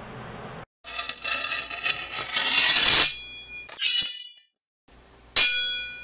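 Metallic sound-effect stinger: a rising whoosh builds for about two seconds into a ringing metallic peak, followed by two sharp metallic clangs that ring out, the second and louder one near the end.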